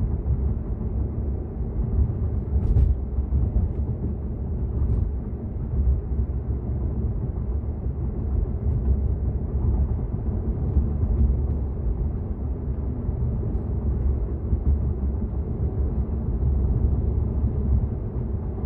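Steady low road and tyre rumble of a Tesla electric car driving, heard inside the cabin.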